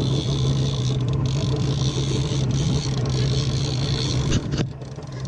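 Boat engine running with a steady low drone at slow trolling speed, under a steady hiss. The whole sound briefly drops away about four and a half seconds in, then comes back.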